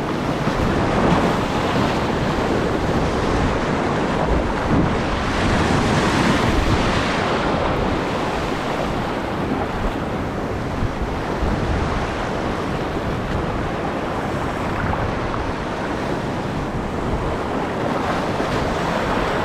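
Surf washing over a shallow reef with wind buffeting the microphone: a steady, unbroken rush of water and wind rumble.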